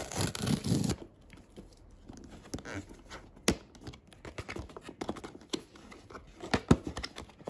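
Tape seal torn off a cardboard camera box, a short rasp in the first second. Then the cardboard box and its flaps are handled and opened, with scattered light taps and a few sharp clicks, the loudest about halfway and near the end.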